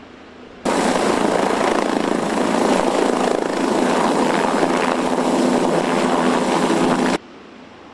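MQ-8C Fire Scout unmanned helicopter (Bell 407 airframe) in a low hover, its main rotor and turbine making a loud, dense steady noise. The noise starts abruptly about half a second in, after a faint steady hum, and cuts off abruptly about a second before the end.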